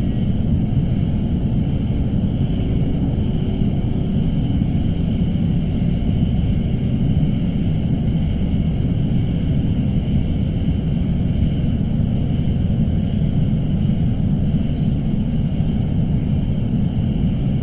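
Suspense ambience drone: a steady, loud low rumble with faint high tones held above it, unchanging throughout.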